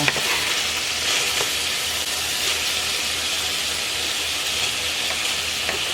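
Ground beef frying in a hot cast iron skillet, a steady sizzle.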